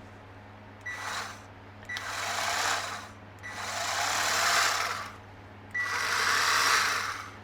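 Haushof cordless electric carving knife running in four short bursts as its power button is pressed and released, the motor and reciprocating blade drive buzzing. Each burst starts with a brief tone. The knife works again but its battery is low on charge.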